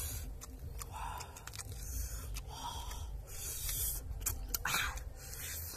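Cooked freshwater crabs being eaten by hand: shells and claws cracking and crunching as they are broken apart and bitten, with chewing. Several sharp cracks come at uneven intervals.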